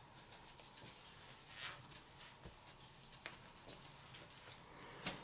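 Faint, quiet room tone with a few light clicks and a short soft hiss about two seconds in, and a sharper click near the end.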